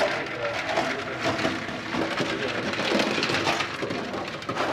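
Boiled eggs and ice cubes clattering and splashing in a steel bowl of ice water, a dense crackle of many small knocks as the eggs are cooled.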